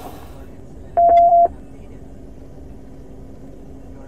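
A single loud electronic beep, one steady mid-pitched tone lasting about half a second, about a second in, over a faint low steady hum.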